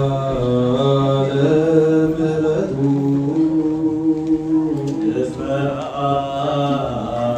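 Men's voices chanting an Orthodox Tewahedo Nativity hymn (zema) through a microphone, slow, with long held notes that step slowly up and down in pitch.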